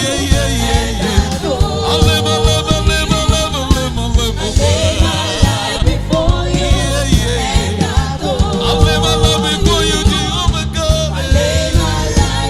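Live gospel praise music: singing voices over a band with a steady drum beat and bass.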